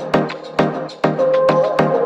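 Background music with a steady beat of about two strikes a second and a held melody line over it.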